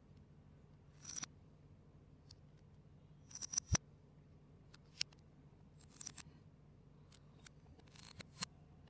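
Lego bricks being handled and pressed together: scattered short plastic clicks and snaps. A cluster comes about three and a half seconds in and ends in the loudest snap, and a few more clicks come near the end.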